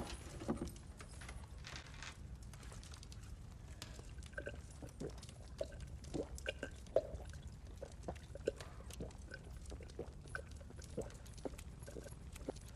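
A man eating, with wet chewing and lip-smacking heard as many small irregular clicks over a low steady hum.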